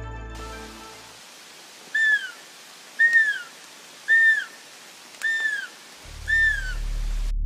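Hand-held roe deer call blown five times, about one short call a second. Each call is a high, arched peep that rises and falls, imitating a roe doe's contact call to lure a buck.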